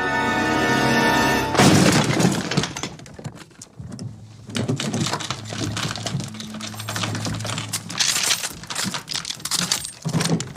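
Orchestral brass music breaks off in a sudden loud crash of something breaking, followed by a run of scattered knocks and thuds.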